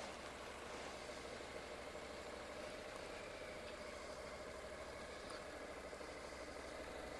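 Honda NC700X's parallel-twin engine running steadily at low revs, heard faintly from a helmet-mounted camera.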